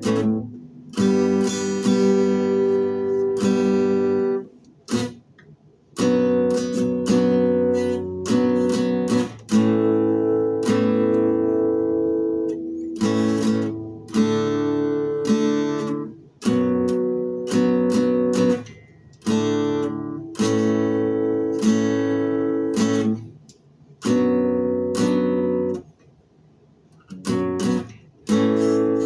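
Acoustic guitar strumming a chord progression, with a few short breaks where the chords stop and the strings fall quiet.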